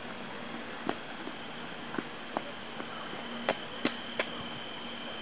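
Steady outdoor background hiss with a thin, high, steady tone, broken by scattered sharp clicks; three of the clicks come about half a second apart between three and a half and four and a quarter seconds in.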